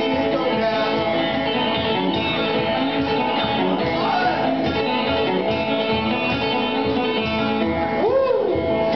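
Banjo picked in quick, dense notes while a man sings over it, his voice sliding up and back down about eight seconds in.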